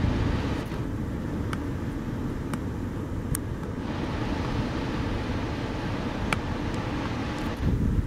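Steady low rumble of wind on the microphone and the wash of breaking surf, with a few faint clicks.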